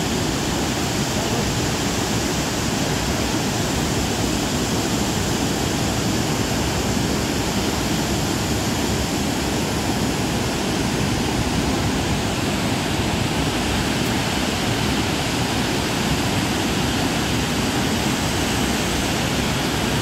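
Gaganachukki waterfall rushing steadily in heavy flow, a dense, unbroken roar of falling water.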